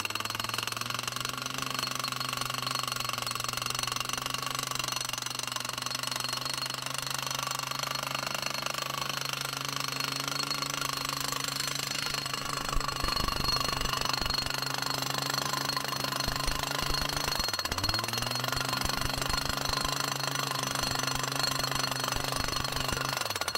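Tractor-mounted post driver hammering wooden fence posts into the ground, with rapid repeated blows over the tractor's steadily running diesel engine. The engine speed sags and recovers about three-quarters of the way through, as if under load.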